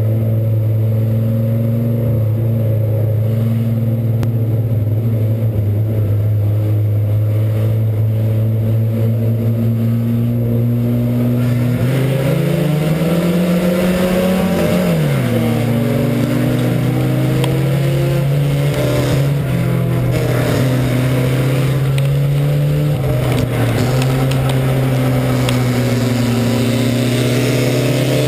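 In-cabin sound of an IMCA Sport Compact dirt-track race car's four-cylinder engine: a steady low drone for about the first ten seconds, then the revs climb sharply and drop back about halfway through, after which the engine runs on with rising and falling revs under a louder rush of tyre and dirt noise.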